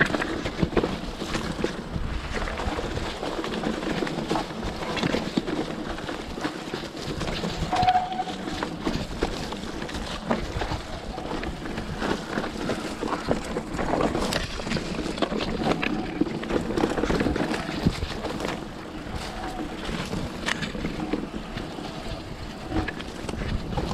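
Mountain bike riding over a leaf-covered singletrack: tyres crunching over leaves and stones, with frequent clatter and knocks from the bike over bumps and wind noise on the microphone.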